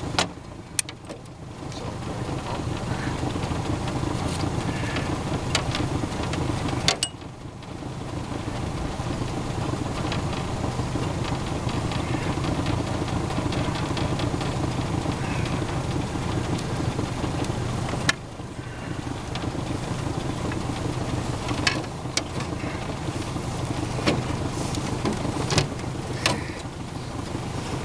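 Small outboard motor idling steadily, with a few sharp clicks and knocks from handling the catch and gear in an aluminum boat.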